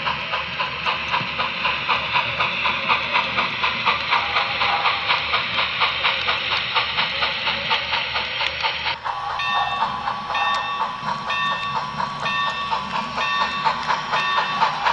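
Steam-locomotive sound from an HO-scale model steam locomotive running slowly: rhythmic hissing exhaust chuffs, about four a second. About nine seconds in the chuffing cuts off and a bell rings in a steady beat.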